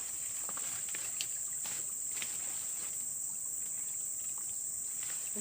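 Steady high-pitched insect chorus, with a few faint clicks scattered through it.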